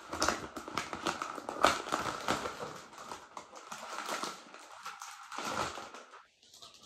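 Packaging being handled and crinkled: irregular crackling and rustling of wrapping that thins out and stops near the end.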